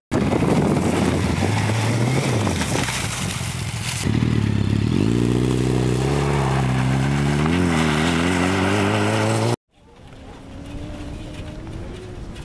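Suzuki Hayabusa's inline-four engine revving hard, its pitch climbing and dropping repeatedly. About nine and a half seconds in, the sound cuts off abruptly, and a much quieter, steadier engine hum follows.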